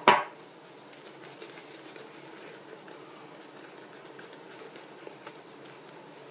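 Semogue SOC boar-bristle shaving brush being worked over a bearded face, spreading shaving cream lather with faint scratchy brushing strokes. It begins with a short loud burst.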